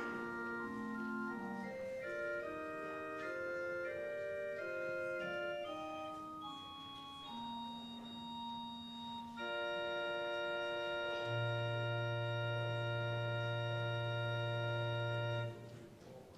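Church organ playing the closing bars of a piece: moving sustained chords settle into a long held final chord, a low pedal note joins partway through, and the chord is released together near the end.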